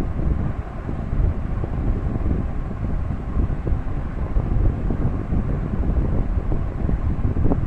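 Steady low rumbling wind noise buffeting the microphone.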